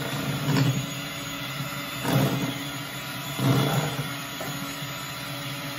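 Electric hand mixer running steadily, its beaters whipping a thick powdered-sugar icing in a glass bowl, with three short louder bursts of noise at about half a second, two seconds and three and a half seconds in.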